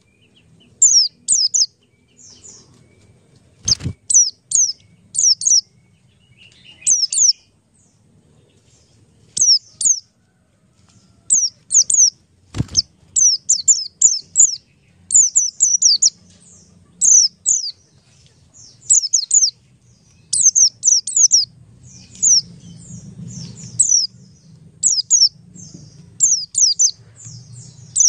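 A bird chirping: short, high notes that sweep downward, in quick clusters of two to four, repeated every second or so. Two sharp clicks cut in, about 4 and 13 seconds in.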